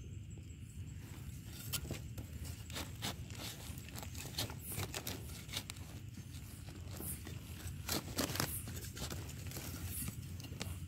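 Knife blade scraping and digging into dry soil to dig out termite mushrooms, a string of irregular scratchy scrapes and crackles of earth and debris.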